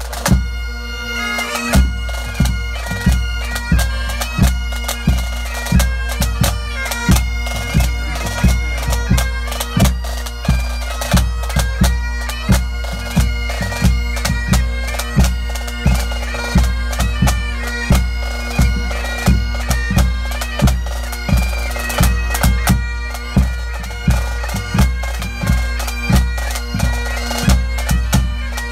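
Pipe band playing: Great Highland bagpipes sound their steady drones under a chanter melody, over snare drums and a steady bass drum beat that is the loudest sound, close at hand.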